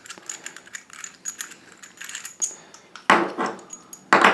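Metal parts of a chrome radiator valve clicking and clinking in the hands as the valve is taken apart into its two pieces, with two louder ringing clinks about three and four seconds in.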